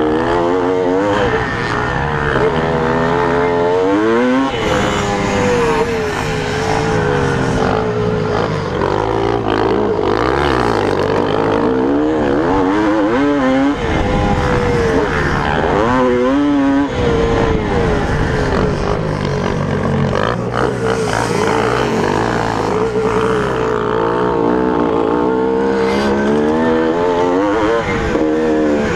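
1981 Suzuki RM250 two-stroke single-cylinder motocross engine under way on a dirt track, its pitch climbing and dropping back again and again as the rider works the throttle and gears.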